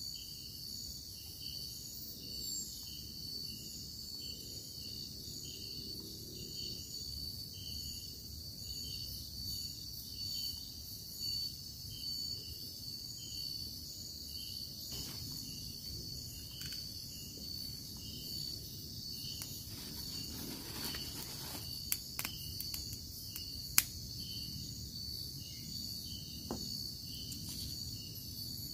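Night-time insect chorus in tropical forest: a steady high-pitched drone with a rhythmically pulsing chirp beneath it. A few sharp clicks come about three-quarters of the way through.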